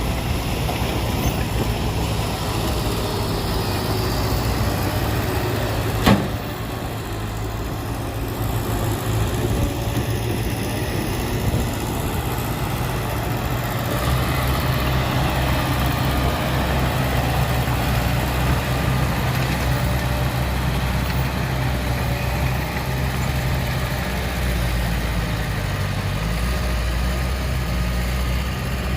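Heavy diesel machinery running steadily at low revs, with a single sharp knock about six seconds in; the engine's low note grows stronger twice, about halfway through and again near the end.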